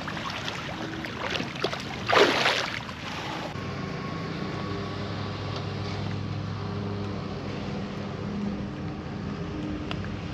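A boat motor starts a steady hum about three and a half seconds in and keeps running evenly. Before it, about two seconds in, there is a brief loud rush of noise.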